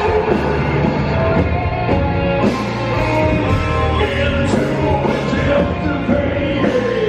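Gothic metal band playing live: electric guitars, bass and drums, with a man singing over them.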